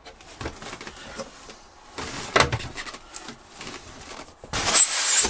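Hard plastic parts of a Simploo composting toilet and its packaging being handled while the urine separator is fitted: scattered light knocks and clicks, a sharper knock about two seconds in, and a loud scrape near the end.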